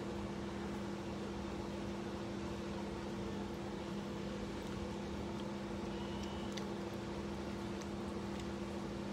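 A steady machine hum, two constant low tones over an even hiss, with a few faint clicks near the end.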